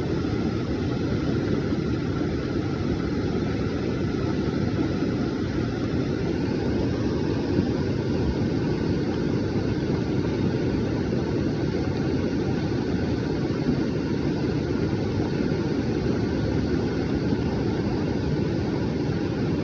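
Floodwater rushing: a steady, low, unbroken noise with no change throughout.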